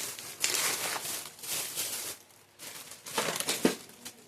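Thin plastic food packets crinkling and rustling as they are handled, in several irregular bursts with short pauses between.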